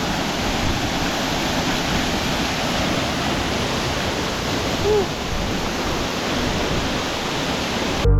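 Jhor Waterfall's lower falls pouring, a steady rushing of water at an even level. Music cuts in abruptly at the very end.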